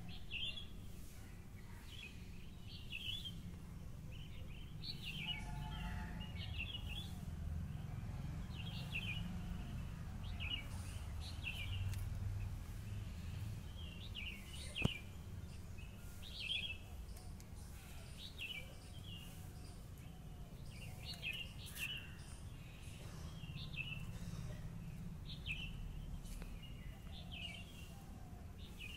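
Small birds chirping outdoors, short high chirps repeating roughly once a second, over a steady low background rumble, with one sharp click about halfway through.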